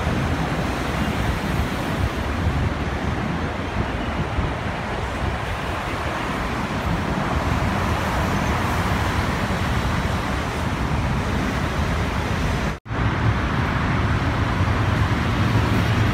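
Steady rumble of diesel trains and surrounding traffic at a railway station. It drops out for an instant about 13 seconds in, and after that a deeper low rumble grows as a diesel locomotive approaches.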